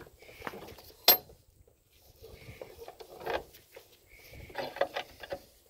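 Metal clicking and scraping as the gland and chrome piston rod of a Woods BK-7500 backhoe boom cylinder are worked out of the cylinder barrel by hand. One sharp click comes about a second in, then two spells of clattering and scraping.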